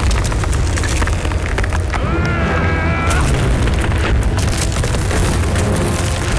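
Animated sound effects of a boat breaking through ice: a steady deep rumble with repeated sharp cracks and crunches of splitting ice.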